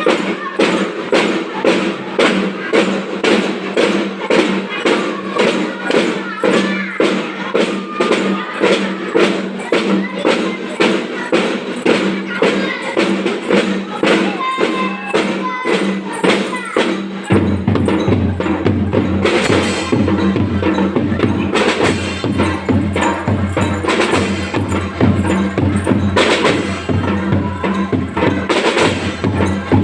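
Drum band playing: marching percussion beating a steady rhythm of about two to three strokes a second over sustained melodic notes. Deeper bass notes join about halfway through.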